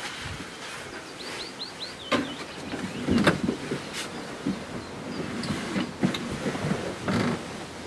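Steady wind hiss with several close knocks and rustles, the loudest about three seconds in. A quick run of about five high bird chirps comes about a second in.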